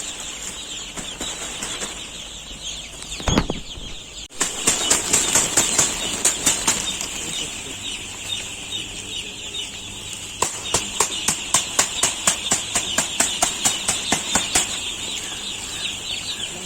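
A flock of chickens with a steady, dense chorus of high calls. It is broken by a thump and then two runs of rapid, evenly spaced beats, about three a second, like wings flapping.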